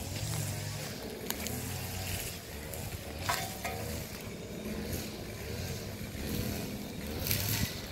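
Golden retriever puppy digging in dry sandy soil, its front paws scratching and scraping the sand in quick strokes, with a low hum coming and going underneath.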